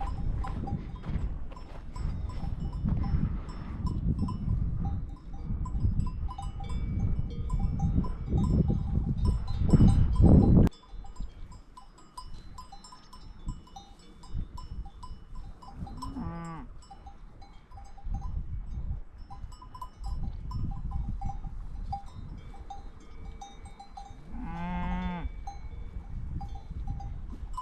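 Cowbells on grazing cattle clinking on and off, with a cow mooing twice, once past the middle and once near the end. A heavy low rumble fills the first ten seconds and cuts off suddenly.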